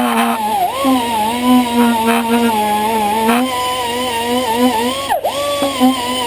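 Air tool with a steel wire brush spinning with a steady whine while scrubbing built-up carbon off engine valves. Its pitch dips sharply and recovers about a second in and again near five seconds.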